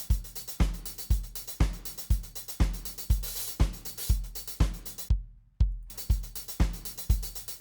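Recorded live drum kit playing a steady beat through the Waves SSL EV2 channel strip plugin with its brown EQ. The kick drum leads at about two hits a second, with snare and hi-hats over it. Playback cuts out for about half a second around five seconds in, then starts again.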